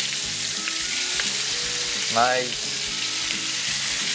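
Bear meat searing in a pan of hot rendered bacon fat, a steady sizzle.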